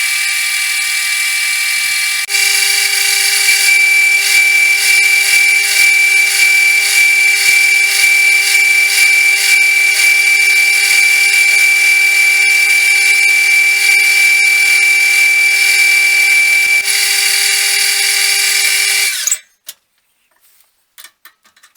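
Metal lathe running while drilling the centre hole in a small turned nut for tapping, a steady whine with a fixed pitch. It gets louder about two seconds in, and near the end the machine stops sharply, followed by a few light clicks.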